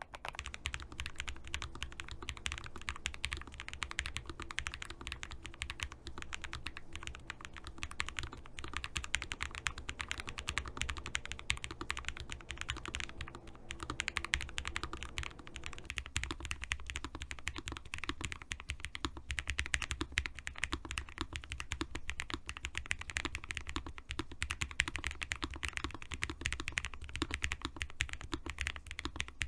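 Lofree Flow low-profile mechanical keyboard being typed on steadily, a continuous fast stream of keystrokes.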